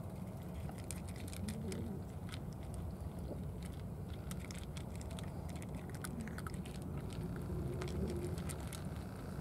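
Cats eating from small dishes: many quick little clicks and smacks of chewing, over a steady low rumble.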